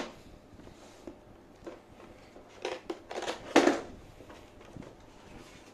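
Cardboard product box handled and opened by hand: a sharp knock as it is set down at the start, then scraping and rustling of the cardboard lid being pulled open a few seconds in, loudest near the middle.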